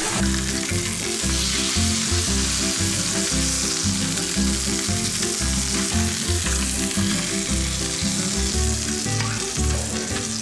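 Skate fillets sizzling in hot oil in a frying pan over high heat, a steady crackling hiss. Background music with a pulsing bass line plays along.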